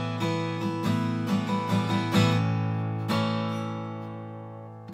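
Alvarez acoustic guitar being played solo: several quick strums and plucked notes, then a chord about three seconds in that is left to ring and fade as the song closes.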